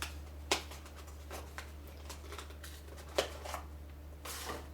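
Handling of an X-Man Wingy plastic twisty puzzle: a few sharp plastic clicks and light rustling, over a steady low hum.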